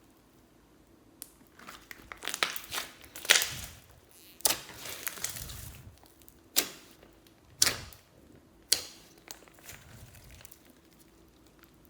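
Slime being squeezed and pressed by hand, giving irregular sharp pops and crackles, the loudest pops spaced about a second apart in the middle, quieter near the end.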